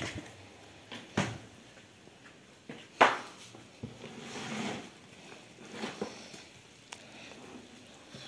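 Cardboard egg flats being shifted and handled in a wooden cage: scattered rustles and light knocks, with one sharp knock about three seconds in.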